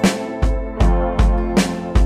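Instrumental background music with a steady beat, about two and a half strikes a second.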